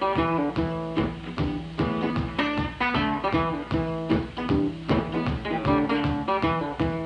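Solo hollow-body guitar playing a repeating blues riff of rhythmic plucked notes and strums, the instrumental opening before the vocals.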